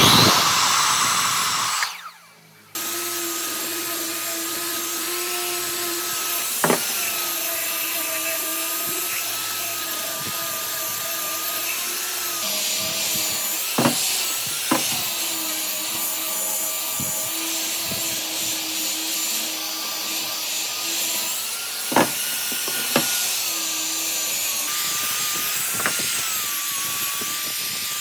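Electric power tool working wood: a loud, harsh burst for about two seconds, a short break, then the motor running steadily with a whine that dips and rises slightly under load, and a few sharp clicks now and then.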